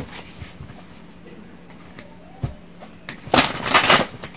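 A deck of tarot cards being shuffled by hand: a short knock about halfway through, then a burst of rapid card riffling lasting under a second about three seconds in.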